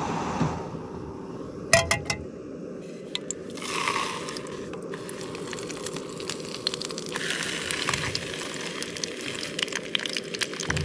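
A canister camp stove burns steadily under a small metal pan, with a few metal clinks about two seconds in. From about seven seconds in, oil sizzles and crackles as pieces of trout go into the hot pan.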